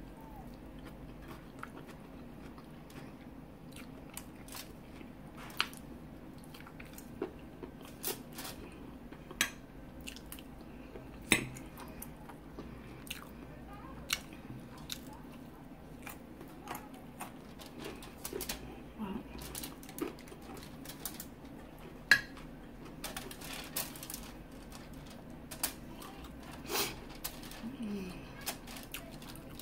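Close-up chewing and biting of chicken wings and crisp salad, with scattered sharp crunches and mouth clicks. Two of them stand out, about 11 seconds in and again about 22 seconds in, over a faint steady hum.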